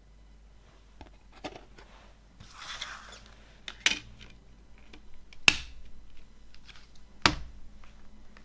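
CD packaging being handled: scattered light clicks and taps, a short rustle or slide, then three louder sharp snaps less than two seconds apart.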